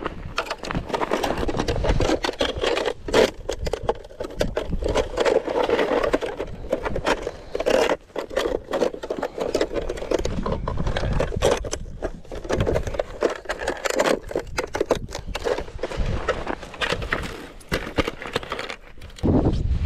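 Close handling noise: a jacket rustling and a round ice-fishing tip-up scraping and clicking as it is picked up from the ice. The noise is loud and uneven, broken by many short knocks.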